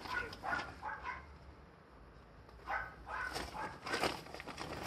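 A dog giving short, sharp cries in two bunches: one lasting about a second at the start, then more from a little under three seconds in, with a quiet spell between.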